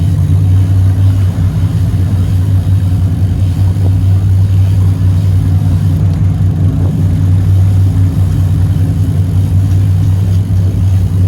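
Boat engine running at a steady speed, a loud, even low drone with no change in pitch.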